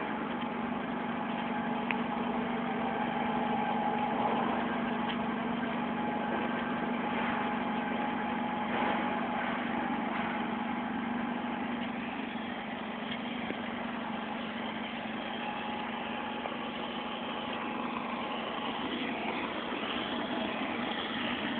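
XZ-50 mortar plastering machine running steadily while spraying mortar, a constant hum on one unchanging low tone.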